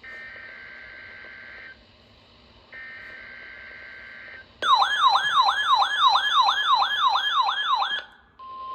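NOAA Weather Radio test signal over a radio receiver: two bursts of the SAME digital header, a screechy two-tone data warble, then a loud electronic siren alarm warbling up and down about four times a second for a few seconds. Near the end the steady single-pitch 1050 Hz warning alarm tone begins.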